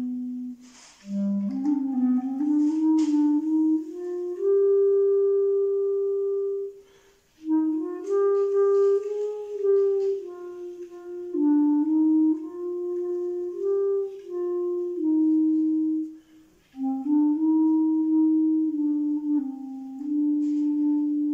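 Solo clarinet playing a slow, melancholy melody, one note at a time, in phrases with short breaks between them.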